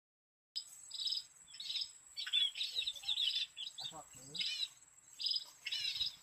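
Small songbirds chirping in short, repeated bursts of high notes, over a faint steady high-pitched tone.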